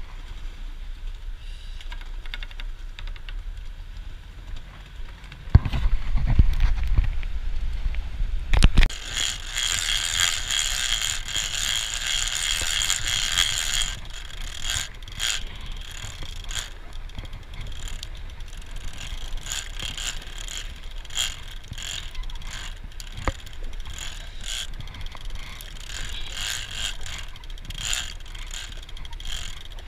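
Large big-game trolling reel being wound in by hand, its gears and clicker ratcheting in quick repeated clicks, with a steadier whirring stretch near the middle. A low rumbling buffet on the microphone comes about a quarter of the way in.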